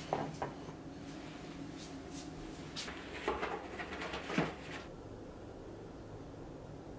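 Tableware being handled at a meal: light clicks and knocks of utensils against dishes, two near the start and a quick cluster from about three to four and a half seconds in, then only faint background from about five seconds.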